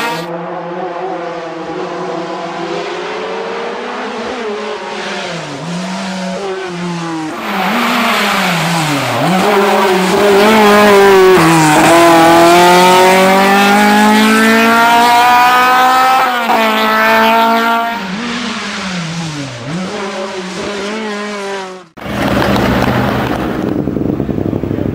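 Škoda 130 LR hill-climb car with its rear-mounted four-cylinder engine at full throttle, the pitch climbing and then dropping sharply again and again as it shifts up and brakes through the corners. The sound jumps at several cuts, and the last few seconds are rougher and noisier, with less clear engine pitch.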